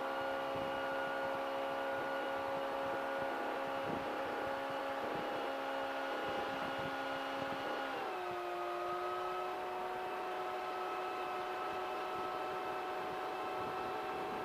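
CGS Hawk ultralight aircraft's engine running steadily with a droning tone. About eight seconds in, the pitch drops a step and then holds at the lower speed.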